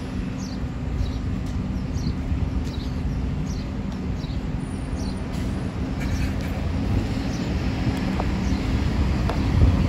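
Heavy diesel bus engine running at low speed, a steady low rumble that grows louder near the end as it comes closer. Short high chirps repeat about every half second through the first half.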